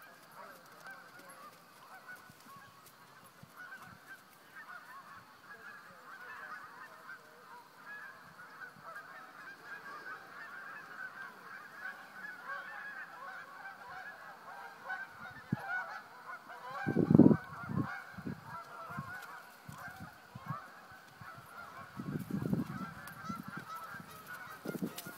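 A flock of geese honking, many overlapping calls. A few low thumps break in, the loudest about two-thirds of the way through and more near the end.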